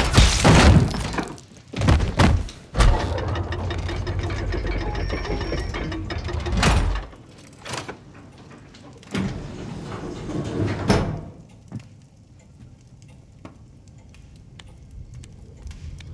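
Film sound effects: sudden rushing hits and thuds at the start, then a low steady rumble with a sharp crack about seven seconds in. A heavy sliding rumble follows around nine to eleven seconds in, the sound of a hidden bookcase door moving, then small clicks.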